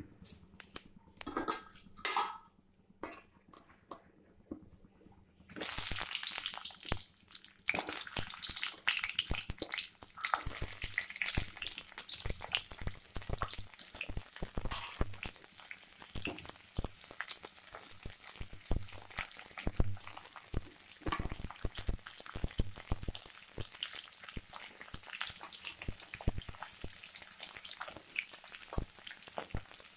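Peeled pointed gourd (potol) pieces frying in hot oil in a kadai. A few scattered clicks come first. About five seconds in, a sudden loud sizzle starts as the pieces go in, with a second surge a couple of seconds later. It then settles into a steady frying sizzle with constant crackles and spatters.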